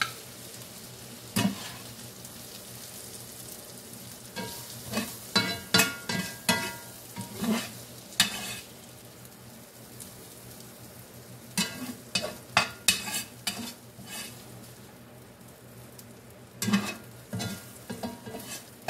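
Metal spatula scraping and knocking against a cast iron skillet in irregular bursts as the cheesesteak filling is scooped out, over a faint steady sizzle of the hot pan juices.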